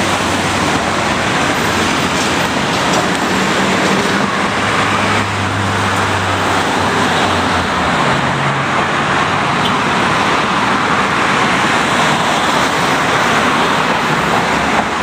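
Steady noise of city road traffic as cars pass close by, with a heavier vehicle's engine hum swelling for a couple of seconds near the middle.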